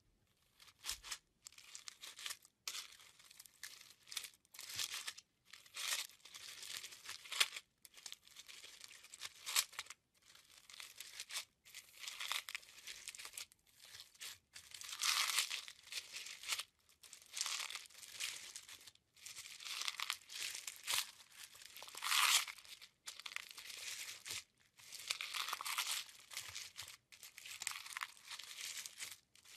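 Glittery slime packed with small clear beads, squeezed and kneaded by hand, giving crunchy crackling in irregular bursts with short pauses between squeezes.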